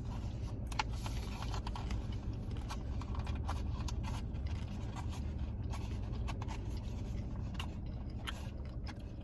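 Steady low rumble of a car cabin, with scattered light scrapes and clicks of takeout food containers and wrappers being handled.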